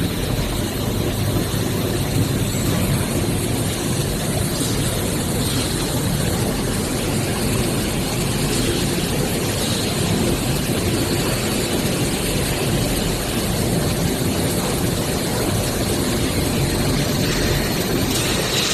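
Hydraulic scrap-metal baler running, a loud, steady mechanical noise with no real change in level.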